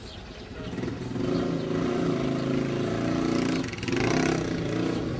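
A small vehicle engine running, getting louder about a second in, with a brief dip a little past halfway before it comes back.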